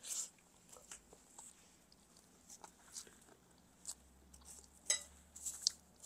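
Faint eating sounds: soft, scattered mouth smacks and clicks as rice and chicken curry are eaten by hand, with a sharper click about five seconds in.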